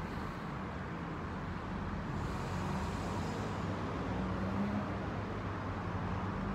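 Steady low mechanical hum whose pitch wavers slightly, over an even background of outdoor noise.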